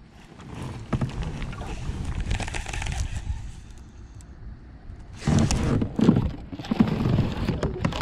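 Pedal-drive kayak under way on calm water, with a steady low rumble and swish of the drive and water under the hull. From about five seconds in there is loud rustling and knocking of gear handled close to the microphone.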